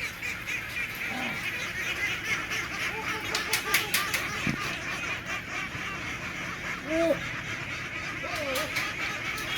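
A large flock of domestic ducks calls all at once in a dense, continuous chorus, the massed buzz likened to a swarm of bees. A few louder single quacks stand out in the second half, and there are a few sharp clicks about a third of the way in.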